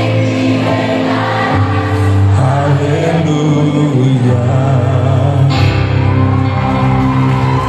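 Portuguese Christian worship song: voices holding long notes over sustained chords, with the bass changing note a few times.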